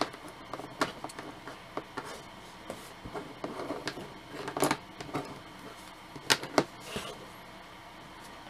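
Scattered light clicks and taps of a hard plastic G.I. Joe Televiper action figure being handled, fitted with its backpack and turned over on a cutting mat. A few louder taps come around the middle and about two-thirds through.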